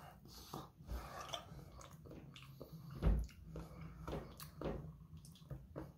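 A person chewing a mouthful of raw fish sashimi, close to the microphone: soft, scattered wet mouth clicks and smacks.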